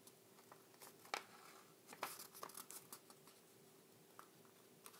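Faint rustling and crinkling of a sheet of paper being handled and folded into a square, with a sharper crinkle about a second in and a cluster of small crackles around two seconds in.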